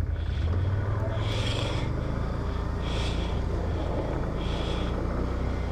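ATV engine running at low, steady revs, with a soft hiss coming back about every second and a half.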